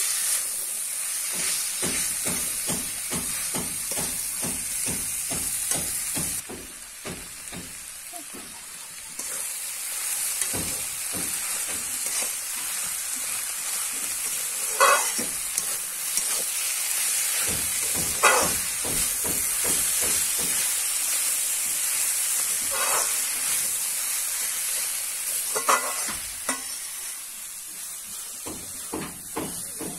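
Mutton and banana flower frying in a metal wok with a steady sizzle, while a spatula stirs and scrapes the pan in quick strokes. The sizzle drops for a few seconds about a quarter of the way in, and a handful of louder, ringing metal scrapes stand out in the second half.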